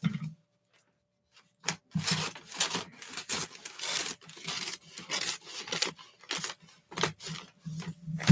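A USPS Priority Mail envelope being torn open by hand, a string of rips as a strip is pulled off along its edge, starting about two seconds in.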